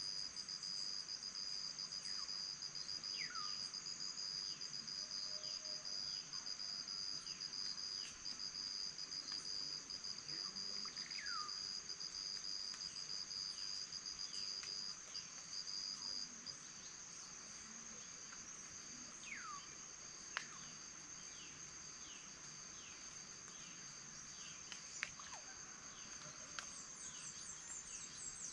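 Steady, high-pitched insect chorus trilling at two pitches. The lower-pitched trill stops about halfway through, leaving the higher one on its own. A few short falling whistled calls sound over it.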